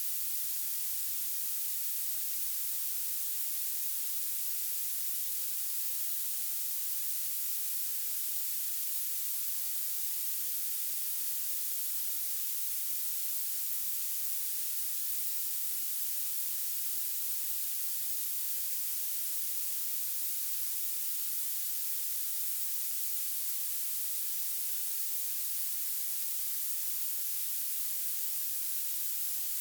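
Violet noise: a steady, unchanging hiss weighted heavily toward the highest pitches, with almost nothing in the low end.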